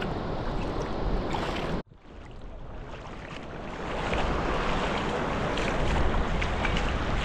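Wind buffeting the microphone over small waves washing on a sandy shore. The sound cuts out abruptly about two seconds in, then fades back up over the next two seconds.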